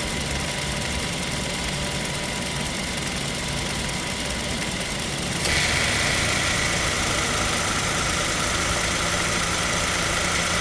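2007 Toyota Tacoma engine idling steadily. About halfway through it suddenly gets louder and a higher whine joins it as the air conditioning is switched on and the AC compressor clutch engages.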